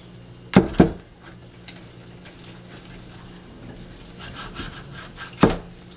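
Hands squeezing and rubbing wet tortilla dough of flour, oil and water in a glass bowl, a soft, steady squishing. Three dull knocks stand out, two close together near the start and one near the end.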